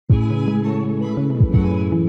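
Background music: sustained string notes changing every half-second or so, over low soft thumps.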